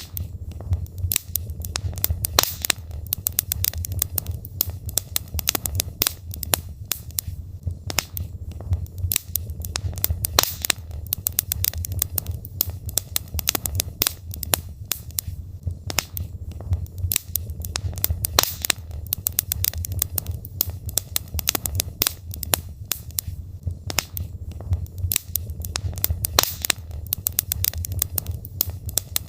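Logs burning in a fireplace, crackling with many irregular sharp pops and snaps over a steady low rumble of flame.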